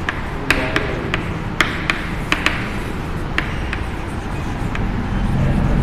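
Chalk tapping against a chalkboard as words are written out: sharp clicks at an uneven pace, about two a second. Under it runs a steady low rumble that grows louder near the end.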